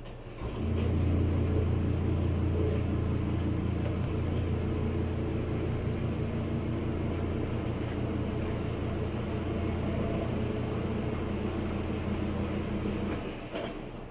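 A machine's steady low hum starts about half a second in, holds at an even pitch, and cuts off shortly before the end.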